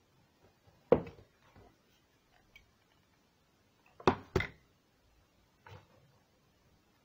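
Knocks and taps from handling a foam-covered cardboard tissue box and craft tools on a wooden table: one knock about a second in, a quick double knock after about four seconds, and a softer one near the end.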